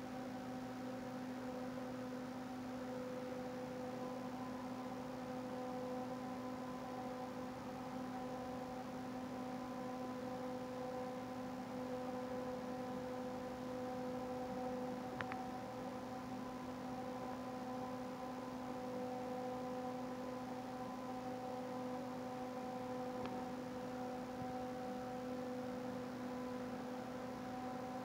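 A steady hum made of several fixed tones, unchanging throughout, with one brief faint click about halfway through.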